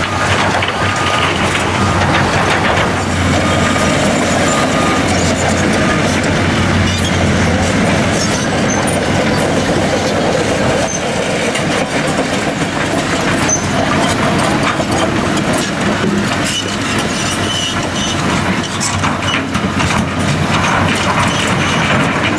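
Caterpillar 963D track loader working under load, its diesel engine running with a steady low drone for the first several seconds while the steel tracks and the loaded bucket clank and rattle, the clatter more irregular later on as the bucket is raised over a dump truck.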